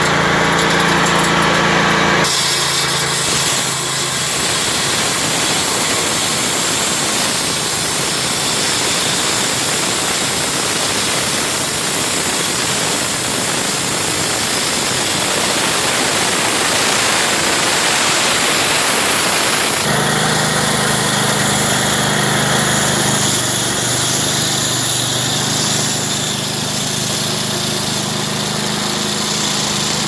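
Walk-behind concrete floor saw running steadily while its 20-inch diamond blade wet-cuts a concrete slab, a continuous grinding hiss of the blade over the engine's hum. The engine's hum comes through more strongly from about twenty seconds in.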